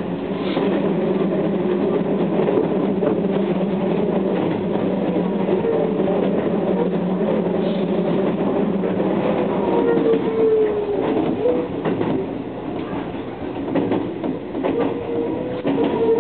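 Keio 6000 series electric commuter train running, heard from inside the front car: a steady rumble of wheels on track with scattered faint clicks. A faint whine wavers in pitch now and then, and the noise eases slightly for a moment about three-quarters of the way through.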